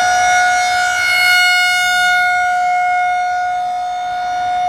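Outdoor tornado warning siren sounding a steady wail at one unchanging pitch, with a rich set of overtones. Its loudness swells and fades slightly, dipping about four seconds in. It signals a tornado warning.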